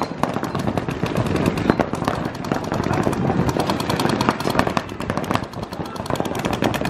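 Several paintball markers firing rapid strings of shots at once: a dense, unbroken stream of overlapping pops.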